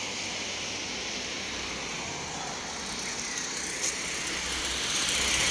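Road traffic on a wide street: a steady hiss of car tyres and engines, growing louder near the end as a car comes closer. There is a single faint click a little before the end.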